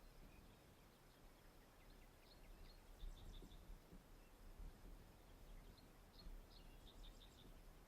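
Quiet outdoor ambience: a faint low rumble of wind on the microphone, with faint bird chirps in two short clusters, about two seconds in and again near the end.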